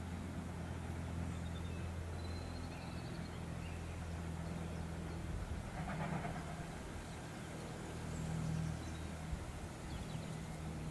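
Distant steam locomotive working a passenger train across open country: a low, steady sound, with faint bird chirps above it.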